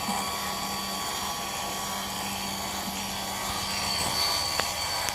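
RV leveling-jack motor running steadily, lowering the rear jacks onto their snap pads.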